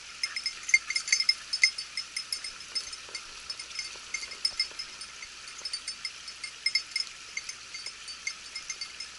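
A hunting dog's collar bell ringing in quick, irregular strokes as the dog moves through the brush, several strikes a second and most busy in the first couple of seconds.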